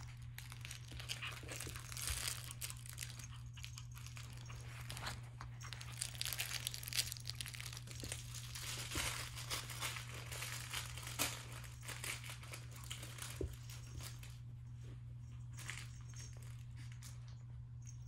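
A crinkly dog toy rustling and crackling in irregular bursts as a puppy tugs and chews at it; the crinkling thins out about fourteen seconds in.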